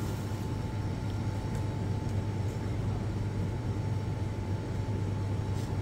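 Steady low machine hum with a faint constant high whine above it.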